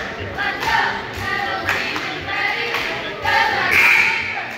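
A group of voices chanting or singing together in a steady rhythm, loudest near the end.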